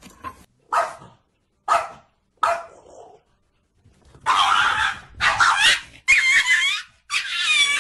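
A dog barks three short times about a second apart, then gives four long, loud, wavering yelping cries.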